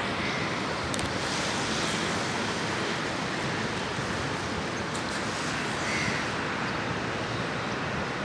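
Steady, even rushing noise of distant road traffic.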